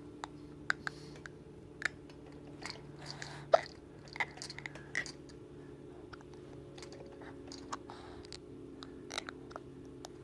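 A baby grinding his teeth: short, irregular sharp clicks and squeaks, the loudest about three and a half seconds in.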